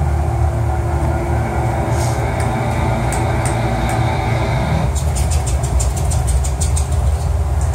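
Steady low mechanical rumble and hum, with a quick run of sharp clicks about five seconds in.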